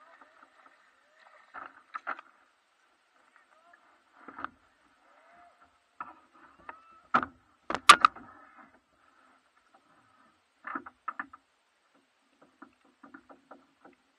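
A small fish being reeled in and landed at a kayak: scattered light knocks and clicks from the rod, reel and hull, with two sharp, loud knocks about seven and eight seconds in.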